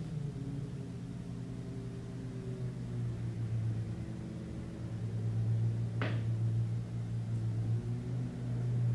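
A low humming drone that swells and eases in loudness, with faint higher tones drifting above it. One sharp click about six seconds in.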